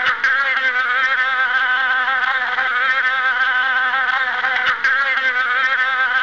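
Soundtrack music: a sustained, buzzy chord of several held pitches, each wavering up and down, with no break.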